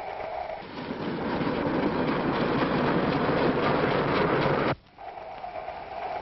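Train running, a loud steady rushing noise that builds in about a second in and cuts off suddenly near the end.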